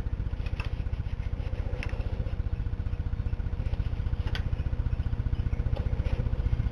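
A motor running steadily, with a low, even pulse of about a dozen beats a second and a faint steady whine. A few light clicks sound over it.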